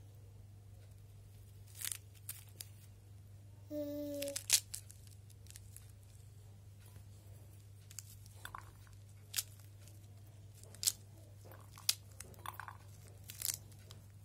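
Pomegranate rind cracking and tearing as hands pull the scored fruit apart into segments: scattered sharp snaps and short crackles. A brief pitched tone sounds about four seconds in, and a steady low hum lies underneath.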